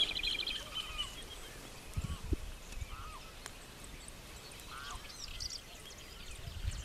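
Birds calling: a rapid high trill fades out in the first second, followed by scattered short, arched calls, with a couple of dull knocks about two seconds in.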